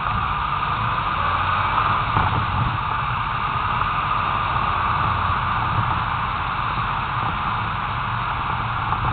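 Steady rush of wind and road noise from a car driving along, picked up by an action camera mounted low on the outside of the car, with a low rumble underneath.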